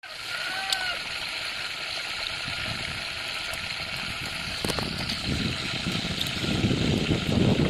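Water sloshing and trickling as green onions are rinsed and rubbed by hand in a plastic basin of water, the splashing getting busier over the last few seconds.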